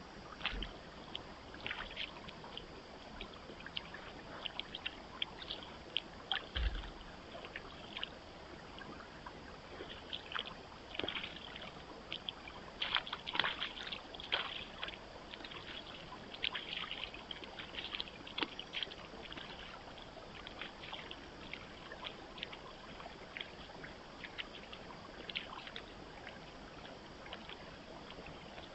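White-tailed deer wading through a shallow pond, its legs splashing and sloshing the water in a run of short splashes, thickest from about ten to eighteen seconds in. There are two dull low thumps in the first seven seconds. A steady hiss from the trail camera's microphone runs underneath.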